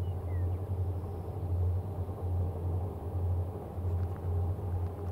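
Diesel locomotive engine of a coal train running, a low rumble that throbs about one and a half times a second.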